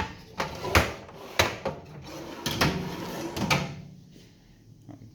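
Metal toolbox drawers and tools being handled: a run of about five sharp knocks and clatters with rattling between them, dying away about four seconds in.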